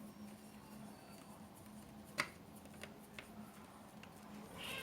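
Small screws being handled and driven back into a laptop's plastic bottom casing with a screwdriver: one sharp click about two seconds in and a few faint ticks over a low steady hum.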